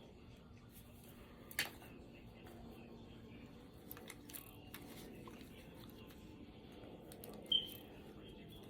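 Small plastic parts of an opened PS5 controller being handled as its buttons are taken out: faint rustling with scattered light clicks, a sharper click about one and a half seconds in, and the loudest, short ringing click near the end.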